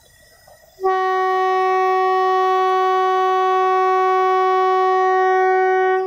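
Horn of a narrow-gauge train approaching a level crossing, sounding its warning. One long, steady blast of about five seconds starts about a second in: a single held note with many overtones, cutting off near the end.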